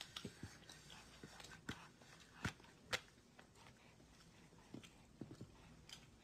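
Faint, irregular taps and clicks of a baby's hands on a plate holding a roti, with two sharper knocks about two and a half and three seconds in.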